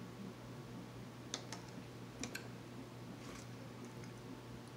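A few faint clicks and taps from a plastic water bottle being handled and set down on a table, over a steady low hum.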